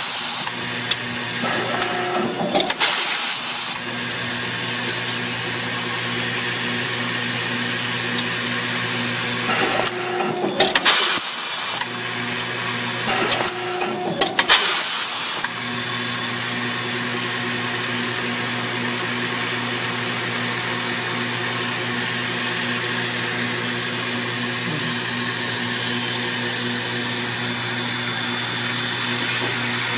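Vibratory bowl feeders of a twin-head auto-feed fastener insertion machine humming steadily, with a low buzz. In the first half, the machine's pneumatic insertion press cycles about four times, each cycle a short burst of air noise and clunks.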